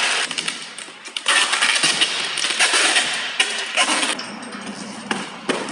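Loud bursts of hissing, rasping mechanical noise. The first burst ends just after the start, and a second one comes in about a second later and runs for nearly three seconds. Lower, scattered knocks and rattles follow it.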